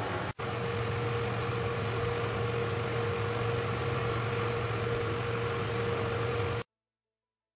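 A steady machine hum with a constant mid-pitched whine over it, unchanging, cutting off abruptly about six and a half seconds in.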